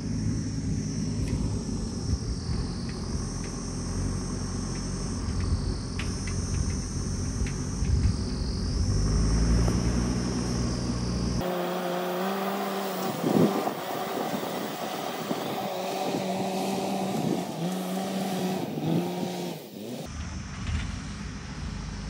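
JCB backhoe loader's diesel engine running and revving, its pitch rising and falling as the machine works. The sound changes character abruptly about halfway through and again near the end.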